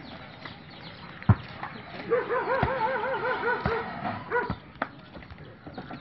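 A goat bleating: one long, quavering call about two seconds in, then a shorter bleat. A sharp knock just before it is the loudest moment.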